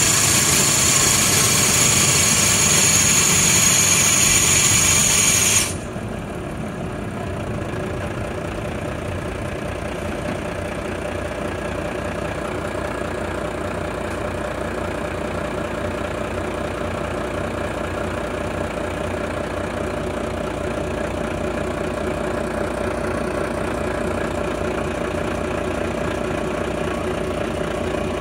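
Volvo B11RT coach's six-cylinder diesel running steadily, heard from inside the passenger cabin. A loud hiss over it for the first five or so seconds cuts off suddenly, leaving the engine's steady drone, which grows slightly louder near the end.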